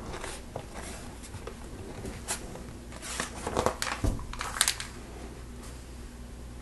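Plastic LEGO pieces clicking and rattling as they are handled and pressed together, a few scattered clicks with a busier cluster in the middle, over a low steady hum.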